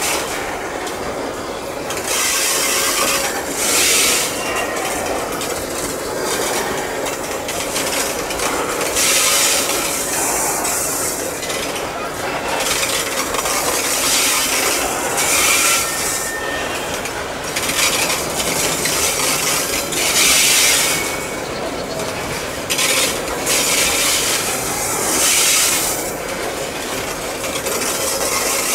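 Loaded coal wagons rolling slowly past, their steel wheels grinding and hissing against the rails in repeated bursts of about a second each over a steady rolling noise.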